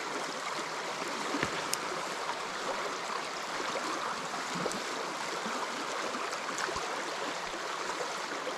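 Creek water rushing steadily through a fast riffle below a small spillway.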